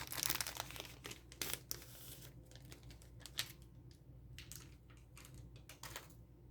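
Packaging crinkling and rustling as a planner is unwrapped by hand, with a burst of crackling at the start and scattered sharp snaps after.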